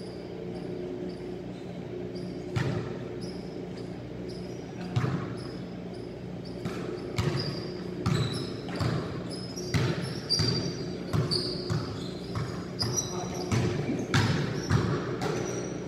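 Basketballs bouncing on a hard court floor in a large echoing gym: irregular thuds, coming more often in the second half, with short high squeaks and faint voices in between.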